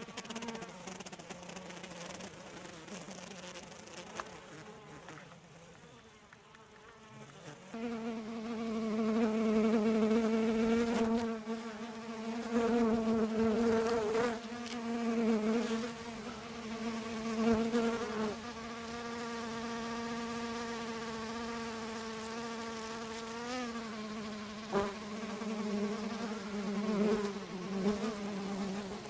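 Honeybees buzzing in flight close by, a steady hum that is faint at first and grows much louder about eight seconds in, wavering briefly in pitch as the insects move.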